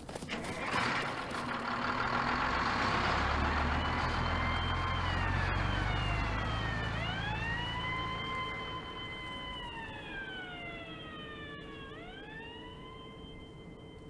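A rumbling noise sets in about a second in and lasts several seconds. Then a wailing siren rises, holds and slowly falls in long cycles, two wails overlapping at times, and fades toward the end.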